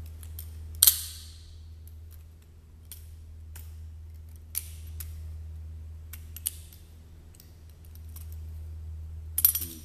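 FU42 balisong being flipped: its metal handles and blade clicking and clacking against each other at irregular intervals, with a louder clack about a second in and two near the end. The flipping is fairly quiet, a little noisier as the blade comes in.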